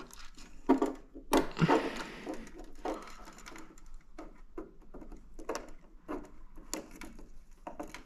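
Irregular small clicks and taps of hands working thin wires out of and into push-in terminal blocks, pressing the orange release tabs.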